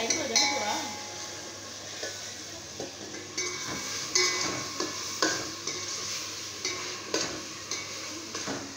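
A metal spoon stirs chicken and vegetables in a stainless steel pot, clinking and scraping against the pot at irregular intervals, over a light sizzle of frying.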